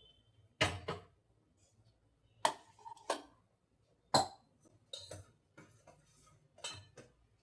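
Dishes and kitchen utensils being handled: a series of separate knocks and clinks, some with a short ring, spaced irregularly, roughly one or two a second.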